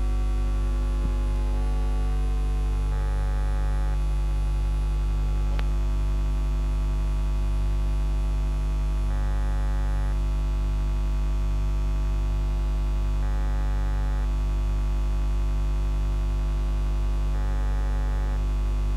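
Steady electrical mains hum at about 50 Hz with a stack of buzzing overtones, with no other sound over it. A faint higher tone comes and goes briefly a few times.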